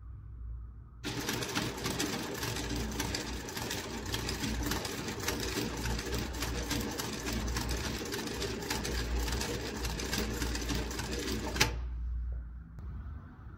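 JUITA JT20U-63Z industrial zigzag sewing machine stitching a zigzag seam, starting about a second in and cutting off suddenly near the end, with a low hum under it throughout.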